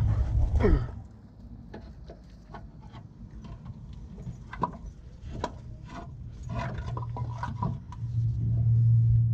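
Light metal clinks and knocks as a replacement starter is handled and worked up into position under the engine. A loud, low, steady machine hum stops with a falling pitch within the first second and comes back from about eight seconds in.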